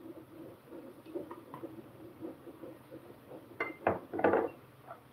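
Kitchen clatter by a wok: a few sharp clinks and knocks of a seasoning bottle, utensils and dishes being handled and set down, bunched about three and a half seconds in, one with a brief ring.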